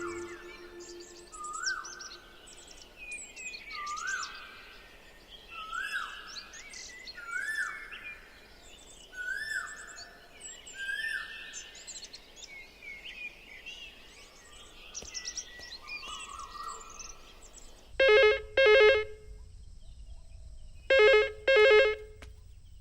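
Birds chirping, with one bird repeating a loud, rising whistled call about every one and a half seconds. Near the end a telephone rings in two double rings, ring-ring twice.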